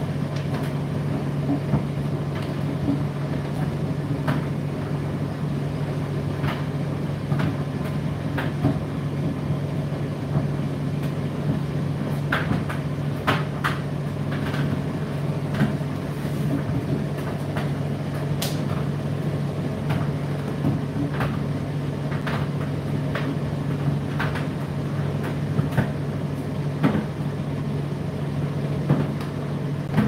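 Indesit IDC8T3 condenser tumble dryer running: a steady motor hum as the drum turns, with irregular light knocks and clicks from the tumbling load.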